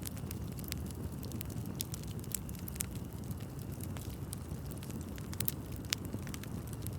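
Wood fire burning with a steady low rumble and frequent irregular sharp crackles and pops.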